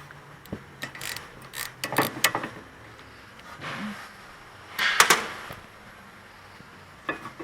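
Scattered metallic clicks and clinks of a ratchet and loosened bolts as the 14mm caliper bracket bolts on a car's rear brake are worked loose, with a louder clatter about five seconds in.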